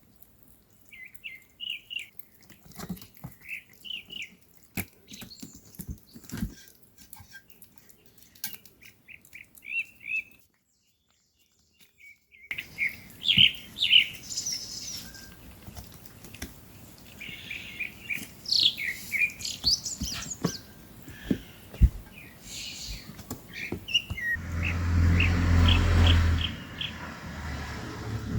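Kittens mewing in many short, high squeaky chirps, several a second, with scattered small clicks and taps. The calls stop for a couple of seconds near the middle, and a louder low hum comes in near the end.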